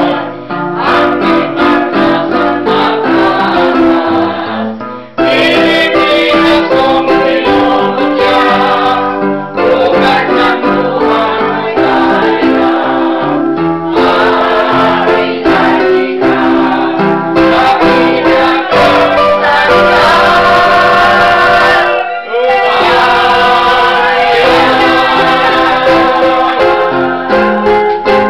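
Small amateur choir, mostly women's voices, singing together with electronic keyboard accompaniment. The singing breaks off briefly twice, about five seconds in and again about twenty-two seconds in, between phrases.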